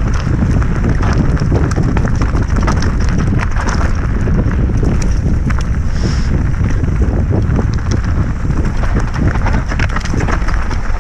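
Mountain bike descending fast on loose, leaf-covered singletrack: wind rushing over the on-bike camera's microphone, with the tyres crunching over leaves and stones and many small rattles and clicks from the bike.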